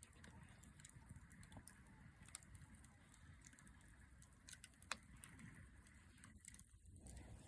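Campfire crackling faintly: scattered small pops and ticks, with one sharper pop about five seconds in, over a low steady rumble.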